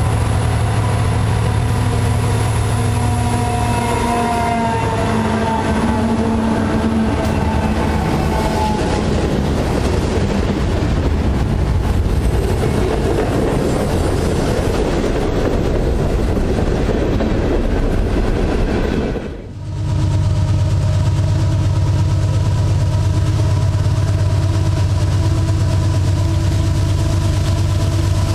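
A diesel freight train passing close by: the locomotive's engine goes by, then a long string of freight cars rolls past, wheels rumbling on the rails. After a sudden cut about two-thirds of the way in, a second diesel locomotive approaches at the head of a loaded train, its engine running steadily.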